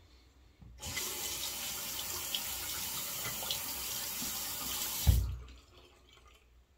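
Bathroom tap running in a steady rush for about four seconds, then shut off with a low thump.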